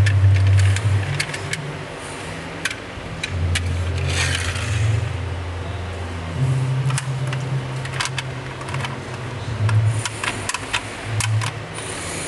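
Plastic toy trucks being handled, with scattered sharp clicks, rattles and scrapes as they are turned in the hands. Under it runs a low, stepping bass line of background music.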